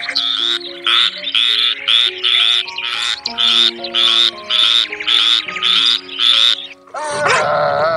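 A frog croaking in an even series of about a dozen short, high-pitched calls, about two a second. The calls stop about a second before the end, and a dog starts to vocalise.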